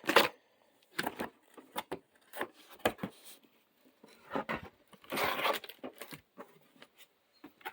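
Cardboard box and packaging being opened and handled: irregular knocks, clicks and rustles, with a longer rustling, tearing noise about five seconds in.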